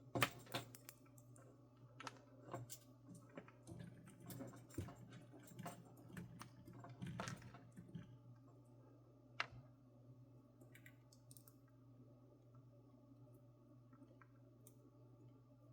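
Irregular light clicks and taps of small parts and wire being handled during a soldering-iron repair. They come close together for about nine seconds, with one sharper click near the end of that stretch, then thin out to a few faint ticks over a steady low hum.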